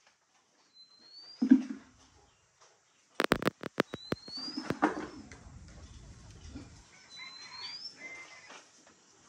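Grass stalks being pushed into a wire-mesh cage: a thump about a second and a half in, a quick run of sharp rattling clicks near the middle, then rustling. A faint, short rising chirp sounds three times, about every three seconds.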